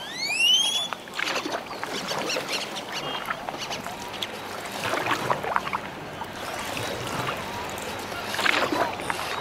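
Canoe paddle dipping and splashing in calm water at irregular intervals, with a short rising whistle at the very start.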